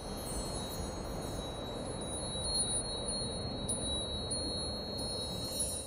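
Wind chimes tinkling with high, ringing tones and a few light strikes over a steady whooshing hiss, starting suddenly and dropping away near the end.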